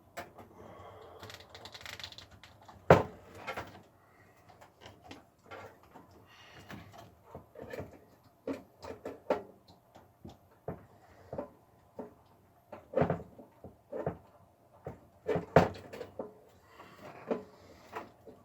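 Hands working inside a desktop PC case: irregular clicks, knocks and rustling as drive cables are rearranged and plugged in. There are two louder knocks, about 3 seconds in and again near the 15-second mark.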